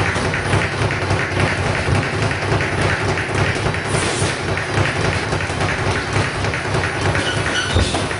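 Continuous rapid tapping and thudding from a boxing gym during sparring, a dense clatter without a break.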